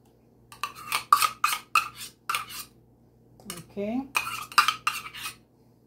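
Quick metallic clinks and scrapes as thick coconut cream is scraped and knocked out of a stainless-steel measuring cup into a glass mixing bowl. There are two runs of sharp clicks with a short pause between them.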